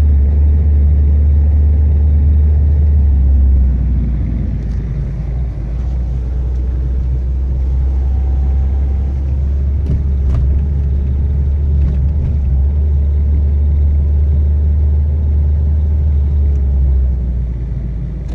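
A 2006 Suzuki Forenza's four-cylinder engine and road noise, heard from inside the cabin as a steady low drone while the car drives slowly at about 2,000 rpm. The level drops slightly about three and a half seconds in. The car has a power-loss fault and will not accelerate.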